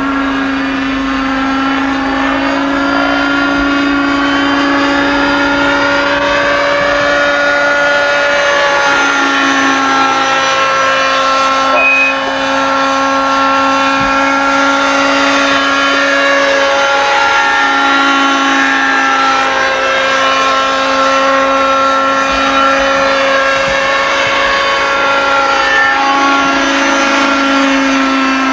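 Engine of a radio-controlled Robbe Ecureuil model helicopter running steadily in flight, a buzzing tone whose pitch wavers slightly as it flies.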